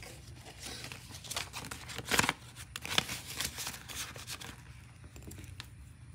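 Plastic zipper pouch of a cash-envelope binder crinkling and rustling as a banknote is slipped into it, a run of crackly rustles loudest about two seconds in that dies away after about four and a half seconds.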